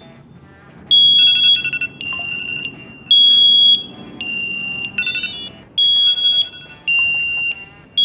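Knog Scout bike alarm going off: a loud electronic siren alternating between a higher and a lower beeping tone, each held about half a second, broken twice by bursts of rapid chirping. It is the alarm sounding because the bike has been touched.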